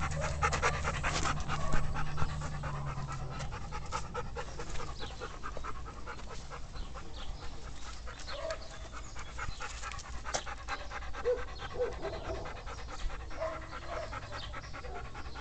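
A large dog panting with its mouth open, quick even breaths, loudest in the first few seconds.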